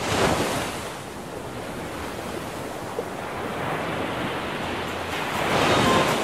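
Sea surf: waves washing in as a steady hiss, swelling louder near the end.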